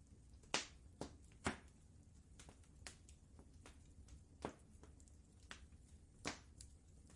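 Wood fire crackling quietly: scattered irregular snaps and pops, a few louder ones standing out, over a faint low rumble.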